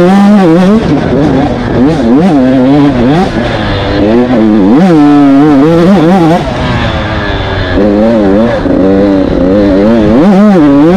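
Dirt bike engine heard from on the bike, loud, its pitch rising and falling again and again as the throttle is opened and closed over the trail.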